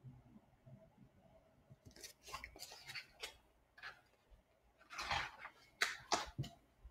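Paper picture book being handled and a page turned: a run of short, quiet paper rustles and light clicks, starting about two seconds in.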